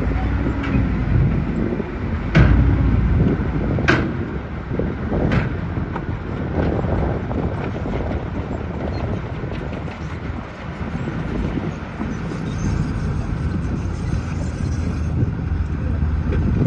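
Heavy construction machinery running with a dense, low engine rumble, broken by three sharp knocks in the first six seconds.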